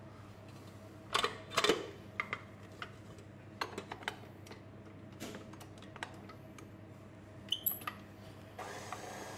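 Steel mixing bowl and flat paddle clinking and knocking as they are fitted onto a stand mixer. Near the end the mixer's motor starts and runs steadily, beating the gianduja.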